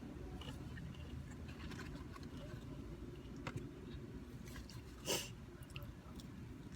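Quiet eating in a parked car: small mouth clicks and one short, sharper eating noise about five seconds in, over a steady low rumble.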